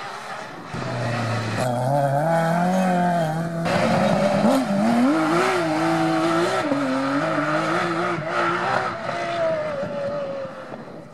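Porsche 911 rally car's flat-six engine under hard acceleration, coming in about a second in. The revs climb and drop back at each gear change, and it fades near the end as the car drives away.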